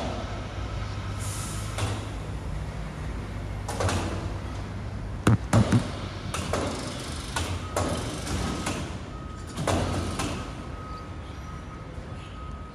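A rubbish truck's engine runs at idle with a steady low hum, under a series of knocks and rattles; the loudest is a quick cluster of three bangs about five and a half seconds in. A thin steady whine starts about eight seconds in.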